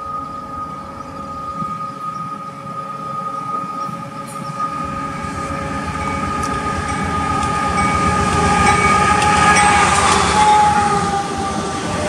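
Diesel freight train approaching and passing, led by a GE AC44CW locomotive: its air horn sounds one long steady chord that drops in pitch as the lead unit goes by about ten seconds in. Under it, the rumble of the diesel engines and wheels grows louder as the train nears.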